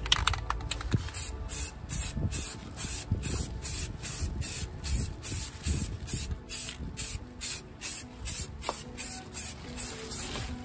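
Aerosol can of white spray paint hissing in many short bursts in quick succession, starting about a second in.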